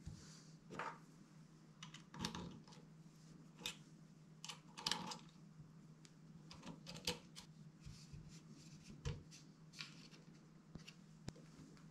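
Faint, irregular clicks, taps and scrapes from hands fitting a scope onto a crossbow's rail and working its mount, over a steady low hum.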